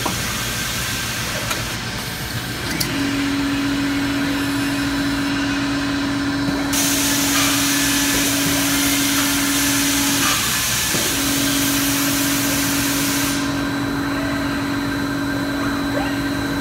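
Machinery of a robotic assembly cell running: a steady mechanical din with a steady humming tone that comes in about three seconds in and drops out briefly around ten seconds, and a hiss from about seven to thirteen seconds.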